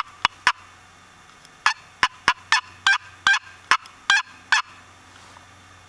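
Wooden turkey box call stroked to make short, sharp turkey yelps: three quick notes, a pause of about a second, then a run of about nine more, ending about four and a half seconds in.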